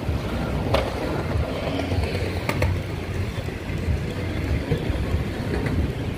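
Wind rumbling on the microphone over ocean surf breaking on a beach, with two brief clicks, about one and two and a half seconds in.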